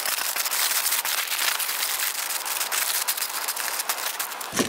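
Aluminum foil crinkling and crackling as hands fold it over into a packet, a steady run of sharp little crackles.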